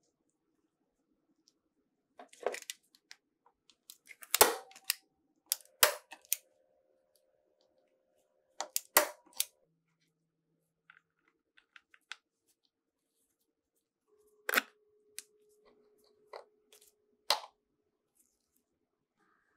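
A hand staple gun snapping staples into a wooden speaker baffle to fix new acoustic cloth: about six sharp snaps, irregularly spaced a second or several apart, with faint handling noise between.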